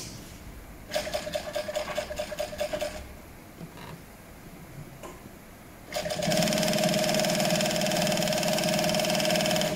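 HighTex 7318 single-needle walking-foot industrial lockstitch machine sewing leather. A short run of about two seconds starts a second in, with each stitch stroke audible. After a pause of about three seconds, a longer, steady, continuous run begins about six seconds in.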